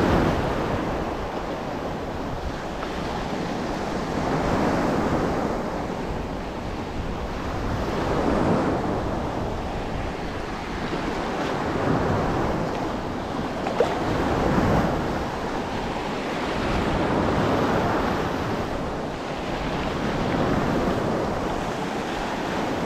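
Small sea waves washing and breaking around the shallows, the surf rising and falling every few seconds, with wind buffeting the microphone.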